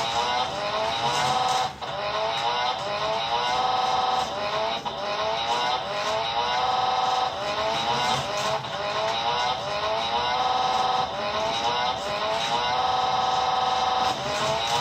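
Toy slot car track's sound-effects module playing a recorded race-car engine revving effect. It comes in rising sweeps that repeat in a loop every few seconds.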